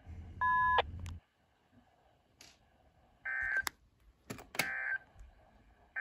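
Electronic beeps from radio receivers: a clean two-tone beep over a low hum about half a second in, then several sharp clicks and short beeps a little past the middle and again at the end.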